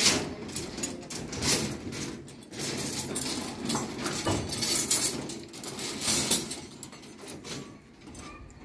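Steel rebar stirrups clinking and scraping against the main bars of a beam reinforcement cage as they are slid along and spaced out by hand, a metallic rattling that comes and goes, loudest about a second and a half in and again around four to six seconds in.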